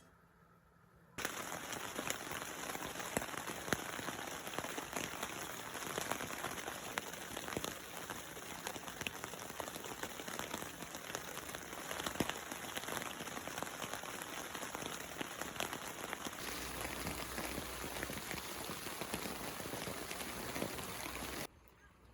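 Steady rainfall with many individual drops ticking. It starts abruptly about a second in, changes slightly partway through and cuts off just before the end.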